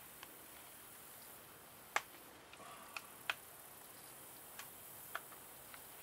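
A few sharp, irregular clicks and taps of a screwdriver working the tight terminal screws of a new AC contactor, the loudest about two seconds in, over a faint steady hiss.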